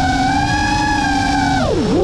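GEPRC Mark 5 five-inch FPV quad's brushless motors whining at a steady held throttle, with a rush of air noise underneath. Near the end the pitch falls sharply as the throttle is chopped, then begins to climb again.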